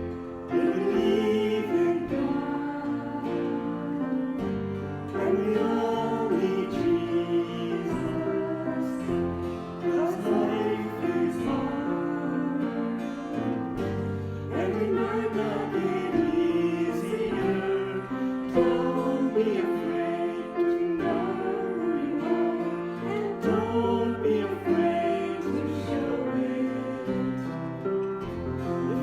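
A church praise team performing a worship song: several voices singing together over instrumental accompaniment.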